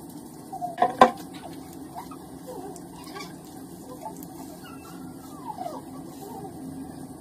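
Hands working a thick, wet oat-and-oil hair mask through long wet hair, with faint wet rubbing sounds over a steady low hum. A sharp knock-like clatter comes about a second in.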